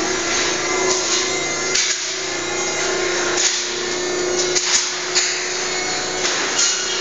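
A machine running with a steady hum, with short scraping and knocking noises of work coming and going about once a second.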